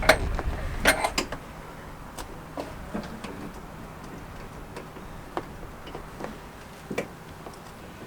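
Scattered sharp clicks and knocks, a few loud ones in the first second or so and then fainter ones spaced a second or two apart.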